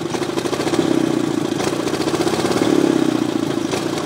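18 hp Briggs & Stratton go-kart engine under a floored throttle, its pitch staying mostly flat, rising a little about three seconds in and dropping back near the end instead of climbing smoothly. This is the stumble off the bottom of the powerband that the owner complains of: the engine will not accelerate smoothly when punched and has to be nursed.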